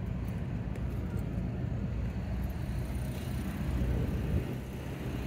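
Steady engine and road rumble of a vehicle heard from inside the cab while driving.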